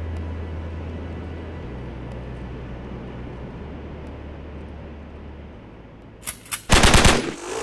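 Soft background music with deep sustained bass notes that change pitch every couple of seconds and slowly fade. Near the end comes a short, loud burst of rapid rattling clicks, like a rapid-fire sound effect, lasting about half a second.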